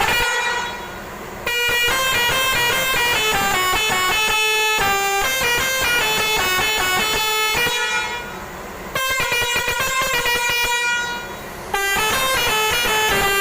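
Six-trumpet Basuri telolet bus air horn, Indian-made, playing a melody of stepped notes. It breaks off briefly three times: about a second in, around eight seconds in, and just before twelve seconds.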